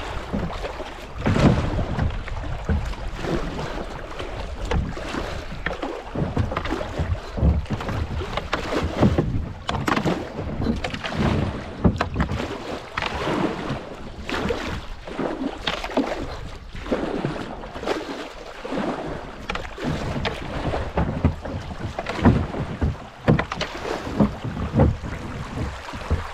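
Kayak being paddled down a shallow creek: paddle strokes and splashing water, with irregular knocks and splashes over running water and some wind on the microphone.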